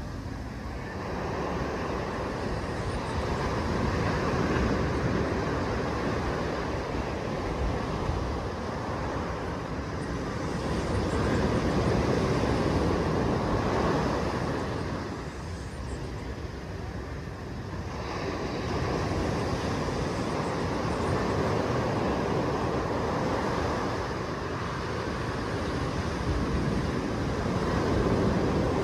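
Small waves breaking and washing up a sandy beach: a continuous surf rush that swells and eases every several seconds.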